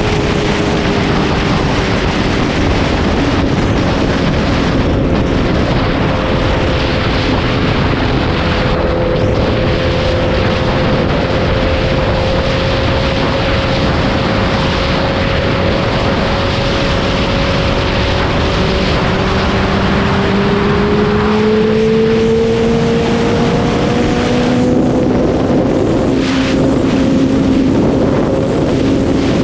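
Sport motorcycle engine running at a steady cruise, its drone drifting slowly in pitch and rising in the last third, under heavy wind rush on the microphone at highway speed.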